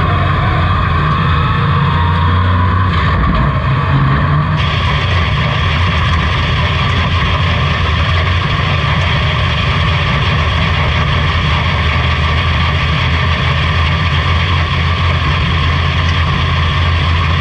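Dirt-track pro truck's race engine heard from inside the cockpit, running loud at a steady speed.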